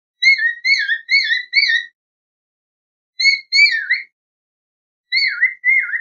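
Cockatiel whistling: a quick run of four short warbling notes, then after a pause two more, and two more near the end, each note bending up and down in pitch.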